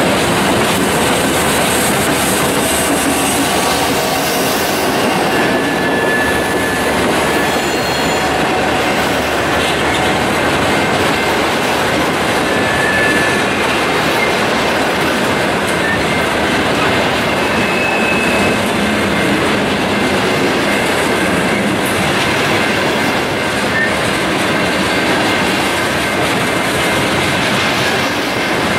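BNSF freight train rolling past: its trailing diesel locomotives, then covered hoppers and tank cars, with a steady rumble and clatter of steel wheels on the rails. A few brief wheel squeals are heard.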